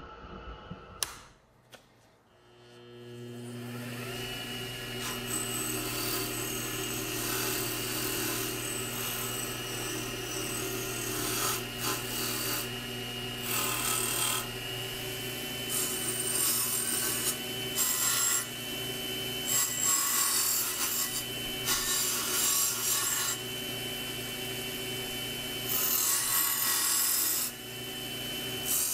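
Benchtop lathe motor starts about two seconds in, comes up to speed and runs with a steady hum. An abrasive wheel is mounted in its chuck. Repeated bursts of scraping and rubbing come each time a small pressed-steel toy truck part (cab, then stake rack) is pressed against the spinning wheel to clean it up.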